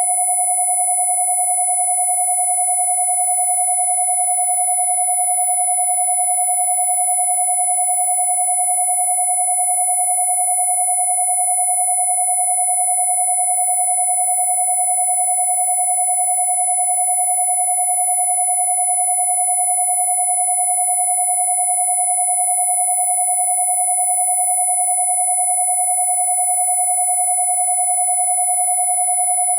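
Two electronically generated pure tones, a 727 Hz tone and a very high 10,000 Hz tone, sounding together and held steady without change.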